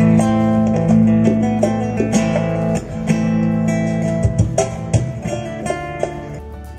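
Live acoustic guitar playing plucked melody notes over held bass notes, with sharp percussive strikes from the accompanying hand drums. The music fades near the end.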